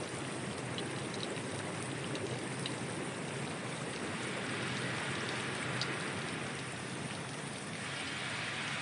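Vegetable bubble washing machine running: water churning and bubbling steadily in its tank, with a low steady machine hum beneath.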